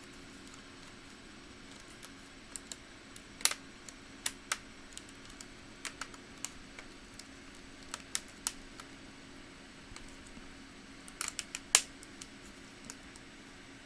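Irregular sharp plastic clicks and snaps as small pry tools work around a laptop's front bezel, the loudest a little past three seconds in and near the end.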